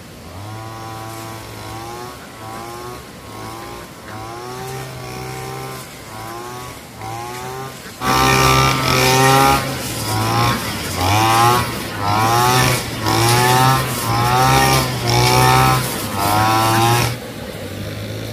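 Small petrol lawn mower engine running and revving up and down over and over, about once a second. It gets suddenly much louder about eight seconds in.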